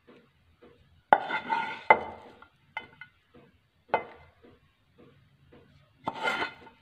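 Serving spoon knocking and scraping against a white bowl while thick bread halwa is spooned into it. There are a few sharp clinks with a short ring, the loudest about a second in and just before two seconds, then a longer scrape near the end.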